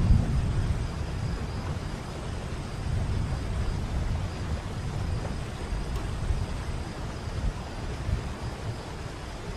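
Waterfall: a steady rush of falling water with a deep rumble, loudest at the very start and then holding a little lower.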